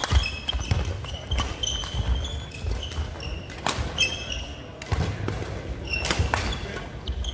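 Badminton in a sports hall: a sharp racket smash on the shuttlecock right at the start, then scattered racket hits and short squeaks of shoes on the wooden court floor, in the hall's echo.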